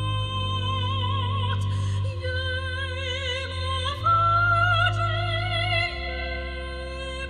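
Operatic soprano singing slow held notes with vibrato over organ accompaniment, the organ holding sustained chords that change every couple of seconds. About four seconds in the voice rises to a higher, louder note.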